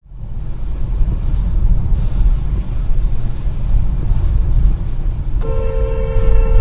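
Car road and engine rumble inside the cabin as it drives along a wet road, picked up by a dashcam. A car horn sounds from about five and a half seconds in and is held on.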